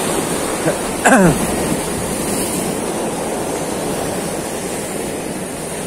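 Sea waves breaking and washing over shoreline rocks, a steady rushing surf. About a second in, a brief sound like a voice drops sharply in pitch.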